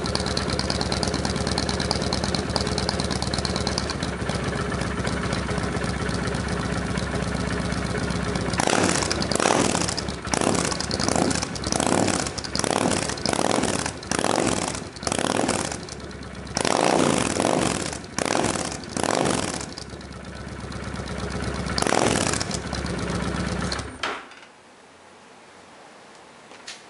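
Honda Shadow 750's V-twin running through a Scorpion sport exhaust: a steady idle, then a string of about a dozen quick throttle blips, one more rev, and the engine stops near the end.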